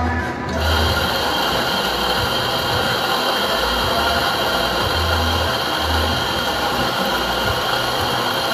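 Electric espresso grinder switched on about half a second in and running steadily, grinding coffee beans into a portafilter.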